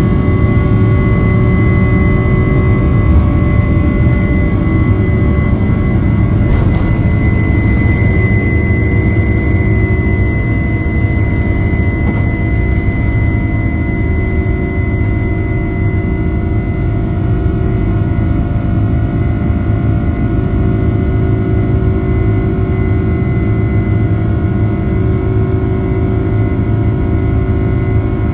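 Boeing 767-300ER's twin General Electric CF6-80C2 turbofans at takeoff thrust, heard from inside the cabin during the takeoff roll and initial climb. A loud, steady low rumble carries several steady whining tones, and the highest whine fades about halfway through.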